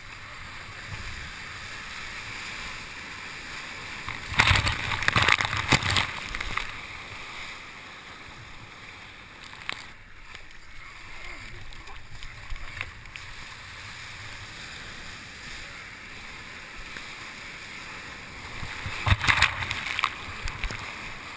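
Sea water rushing steadily past a kayak surfing waves, close to the microphone. There are loud crashes of breaking whitewater and spray over the boat about four seconds in and again near the end.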